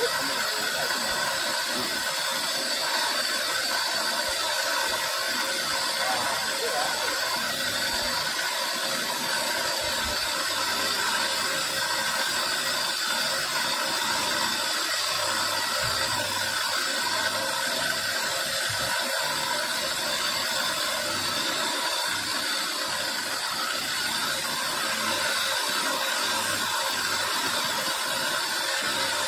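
Electric motor spinning a shaft-mounted grinding bit while onyx marble is pressed against it and carved: a steady high whine mixed with the grinding noise of the bit cutting stone, running without a break.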